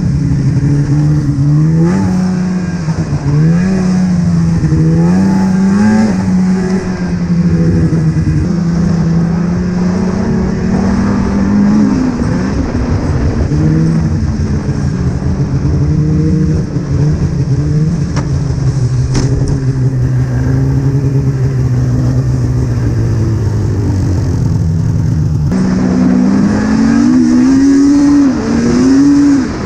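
Polaris Rush 800 snowmobile's two-stroke twin-cylinder engine running hard under changing throttle. Its pitch rises and falls again and again, then holds steadier and sinks slowly. Near the end it jumps up and climbs sharply.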